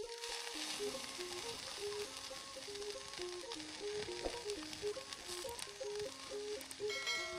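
Oil-smeared chicken pieces sizzling on a wire grill over an open flame, a steady hiss with light crackle, under background music with a plucked melody.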